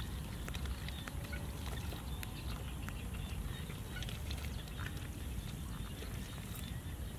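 Bare hands digging and scooping through wet mud, with small irregular squelches and clicks over a steady low rumble.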